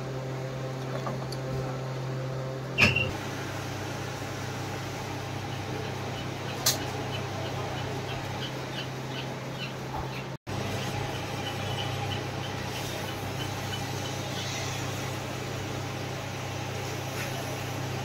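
Steady low electric-motor hum from workshop machinery. There is a sharp click about three seconds in and another about seven seconds in, with faint light ticks at times.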